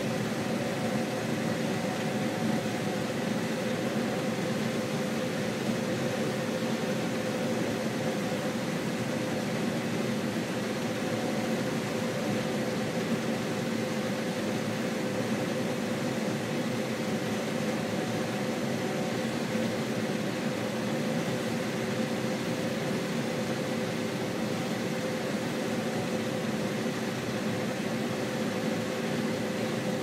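Combine harvester running steadily while harvesting corn, heard from inside the cab: an even machinery drone with a steady hum of a few pitched tones.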